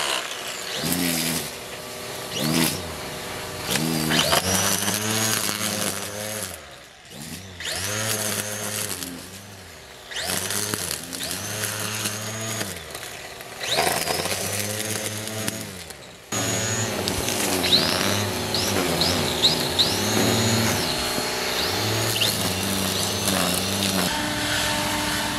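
Electric string trimmer spinning up, running for a second or two and winding down again over and over, about every three seconds, as it cuts through dry leaves and grass. Later it runs more steadily with a high whine.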